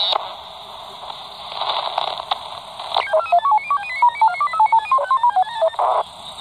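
Albrecht AE2990 AFS handheld CB receiver's speaker giving static hiss while being stepped across the 27 MHz band. About three seconds in comes a fast run of single electronic beep tones, hopping up and down in pitch like a short tune at about seven tones a second. The tones are received over the air, and hiss returns near the end.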